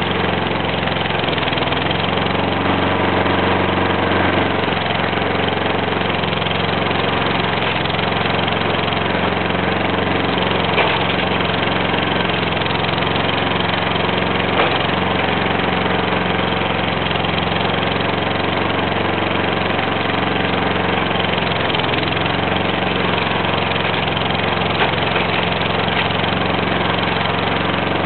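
Remote-controlled lawn mower's small engine running steadily, heard up close from a camera fixed to the front of the mower, with a few brief ticks.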